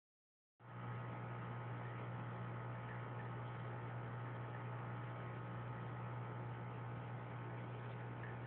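Aquarium pump humming steadily, a low electrical hum over a soft hiss that starts about half a second in and holds unchanged.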